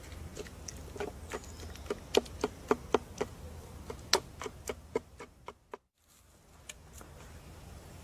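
A run of sharp wooden taps and knocks, two or three a second, from a carved wooden cup handled on a wooden board. They stop about five seconds in; after a brief dropout only a faint steady background remains.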